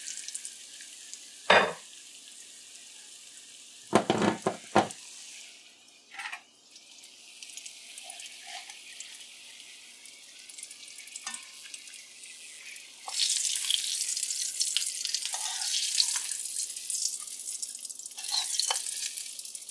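A few sharp clanks of a metal pot lid and spoon against the pots, then, about two-thirds of the way in, a steady sizzling hiss as the fried eggs and their hot oil are tipped from the karahi into the hot curry.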